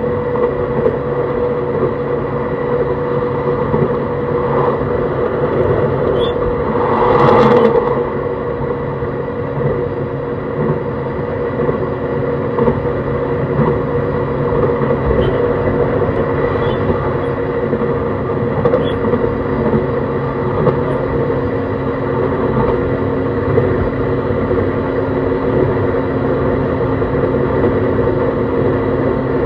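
JR East E131-600 series electric train running at a steady speed, its Hitachi hybrid SiC VVVF inverter and traction motors giving steady whine tones over the rumble of wheels on rail. About seven seconds in there is a brief louder whoosh.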